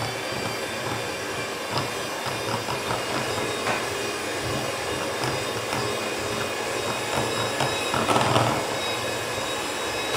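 Electric hand mixer running steadily at one speed, its beaters creaming butter and powdered sugar in a glass bowl, a high motor whine with a few brief clicks and a louder stretch about eight seconds in.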